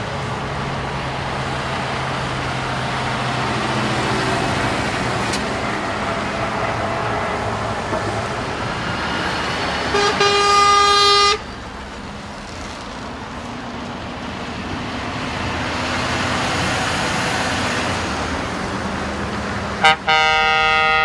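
Steady road and engine noise of traffic, with a vehicle horn sounding twice. The first is a steady blast of just over a second about halfway through; the second is a stuttering blast near the end. The horn blasts are the loudest sounds.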